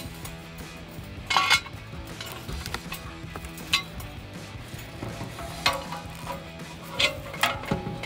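Stock muffler being worked loose and lowered from the cut exhaust pipe: scattered metallic knocks and scrapes, the loudest about a second and a half in and a cluster near the end.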